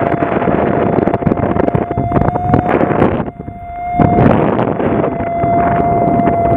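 A steady high-pitched whine over loud wind rush on the microphone, both dropping away briefly about three seconds in before coming back.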